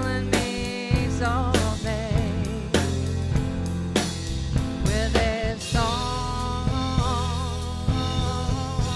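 Live band music with drum kit and bass under a lead melody sung or played with heavy vibrato. About six seconds in, the melody settles onto one long held note.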